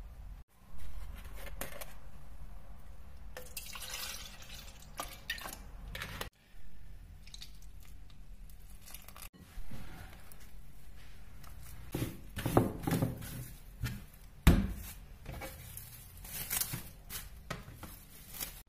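Wooden spoon scraping and stirring flour and melted butter in a glass bowl, then hands squeezing and rubbing crumbly shortcrust dough, with a sharp knock about three-quarters of the way through. Near the end, crinkling of plastic cling film as the dough is wrapped. A steady low room hum lies under it all.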